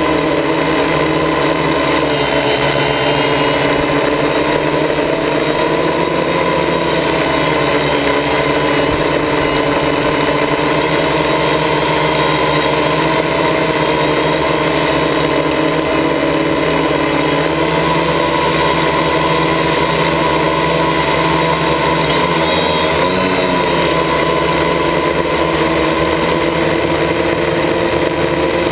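Quadcopter's electric motors and propellers whirring steadily, picked up by the GoPro mounted on the craft. About three-quarters of the way through, the pitch wavers up and down briefly as the motors change speed.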